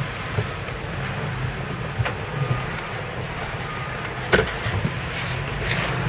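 Car moving slowly, heard from inside the cabin: a steady low engine and road rumble, with two short clicks about two and four seconds in.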